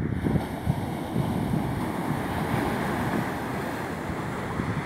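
Surf washing on the shore, with wind buffeting the microphone in an uneven low rumble.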